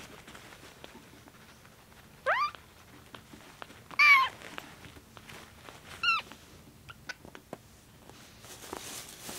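A newborn kitten about two weeks old gives three short, high-pitched mews about two seconds apart, the middle one loudest, then two faint squeaks. It is crying in protest while its belly is rubbed with a tissue to stimulate urination after a bottle feed.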